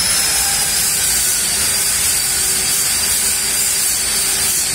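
A steady hiss with a thin high-pitched whine running through it.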